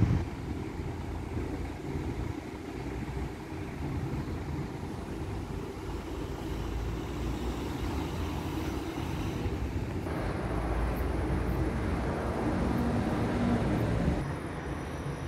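Road traffic going past, a steady low rumble of cars, with the background changing abruptly about ten seconds in.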